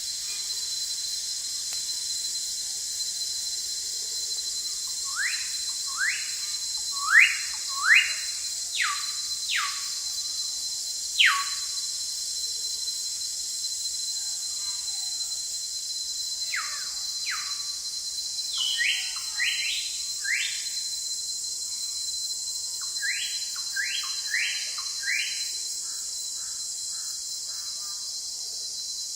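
Forest ambience: a steady high insect drone with a thin continuous whine, over which a bird calls in three bouts of short upward-sweeping whistled notes, a few notes a second.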